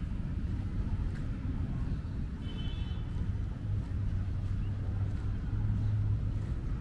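Outdoor ambience dominated by a steady low rumble, with a brief high chirp about two and a half seconds in.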